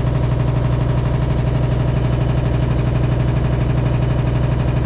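Hitachi SF-150TCV washing machine spinning at high speed: a loud, steady low drone with a fast, even rattle. The noise is abnormal, which the owner puts down to the tub wobbling side to side and shaking the machine's body during spin.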